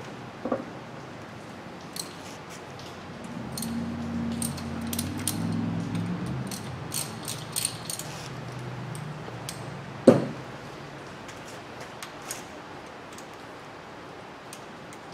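Hand tools clinking and clicking against a metal drill-guide plate bolted to an engine's cylinder head as a socket and extension work its bolts: scattered light metallic ticks, with one sharp knock about ten seconds in the loudest. A low hum runs under the middle part.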